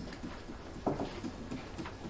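Library ambience: scattered soft knocks, rustles and shuffles over a faint room hum, with one sharper knock about a second in.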